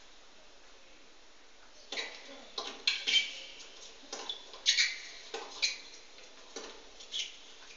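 Tennis ball struck back and forth in a rally: sharp pops of racquet on ball, with bounces in between, starting about two seconds in after a hush. Heard thinly through a television speaker.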